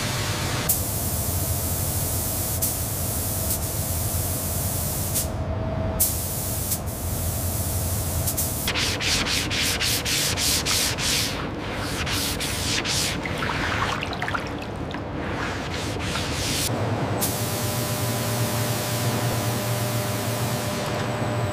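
Hand wet-sanding of a car's painted panel: quick back-and-forth rubbing strokes of wet sandpaper, starting about nine seconds in and running for several seconds. Before and after it, a steady hiss with a low hum.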